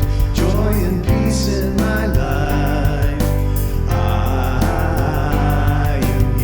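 Live band music with a steady beat and a strong bass, with a voice singing over it.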